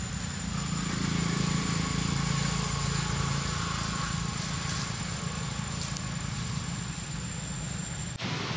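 A motor vehicle engine running steadily, loudest in the first few seconds, with a thin steady high-pitched tone above it. The sound changes abruptly near the end.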